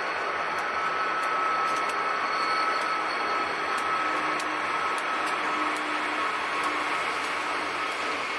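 Conrail diesel freight train passing: the last locomotives and then freight cars rolling by, a steady noise of engines and wheels on rail with a few thin steady tones running through it.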